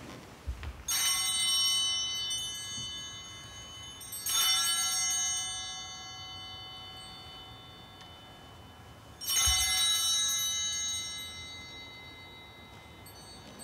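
Altar (sanctus) bells rung three times, about a second in, at about four seconds and at about nine seconds. Each ring is a bright cluster of high tones that fades over a few seconds. The ringing marks the elevation of the consecrated host.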